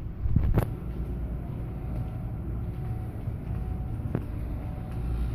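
Steady low rumble inside a cruise ship, with a short knock about half a second in and a fainter one about four seconds in.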